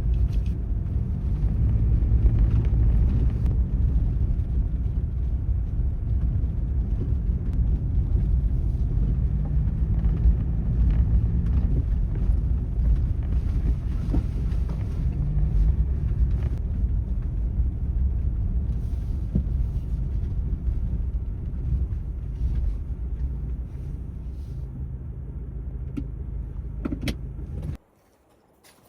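A motor vehicle running: a steady low rumble like a car on the move, with slowly shifting engine pitch, cutting off suddenly near the end.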